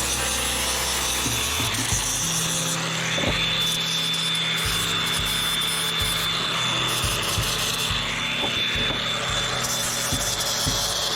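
A power tool running with a rasping noise that swells and fades every few seconds, over background music with low held bass notes.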